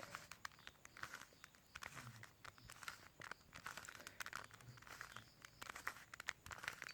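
Plastic Rubik's cube being turned by hand, its layers clicking and rattling faintly in quick clusters as the right-hand sequence (R up, U left, R down, U right) is repeated.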